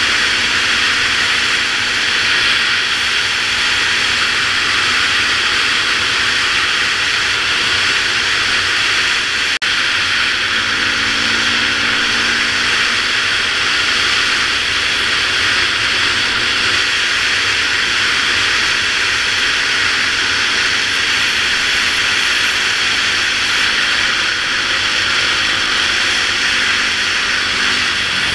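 Helmet-camera sound of a Yamaha YZ450F dirt bike riding at road speed: a steady loud rush of wind over the helmet, with the single-cylinder four-stroke engine's drone underneath. The sound drops out for an instant about ten seconds in.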